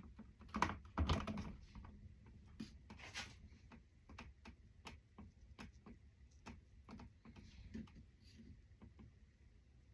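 Irregular light clicks and knocks of a knife and plates as cheesecake is cut and served, with a louder clatter about a second in.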